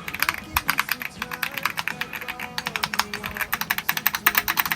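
Fast typing on a Keychron Q5 Max aluminium-cased mechanical keyboard fitted with Keychron Banana tactile switches: a quick, irregular stream of key clacks. Music plays faintly underneath.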